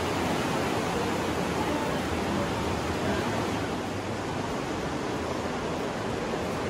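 The Aare river rushing through a narrow rock gorge: a steady, dense wash of water noise that eases a little after about four seconds.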